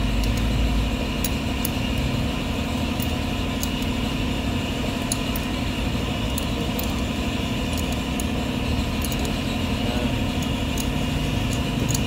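Air compressor running steadily, building up air pressure for an injector-sleeve leak test. Small metal clicks from a wrench on the steel test jig come through now and then.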